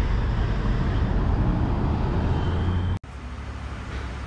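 A train running past with a steady, heavy rumble. About three seconds in, the sound cuts off abruptly to a quieter steady hum.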